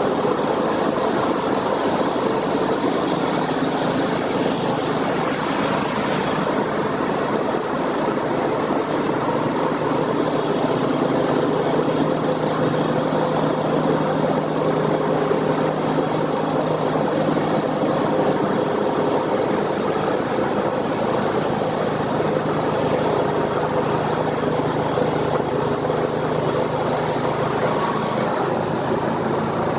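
Sawmill machinery running: a steady engine drone with a constant hum that does not change.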